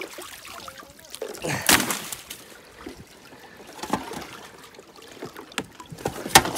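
Water trickling around a kayak as it is handled against a fallen log, with knocks and rustling of rope and the kayak's metal frame tubes; a louder rushing sound comes about a second and a half in, and a few sharp knocks near the end.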